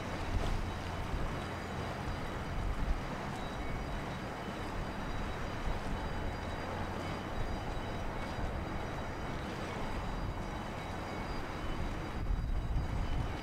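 Steady low rumble of the laker James R. Barker's engines and propeller wash as the ship moves away. Gusts of wind buffet the microphone at the start and again near the end.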